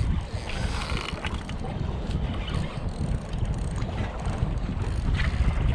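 Wind buffeting the microphone, with the spinning reel working under a hooked fish's pull heard faintly at moments.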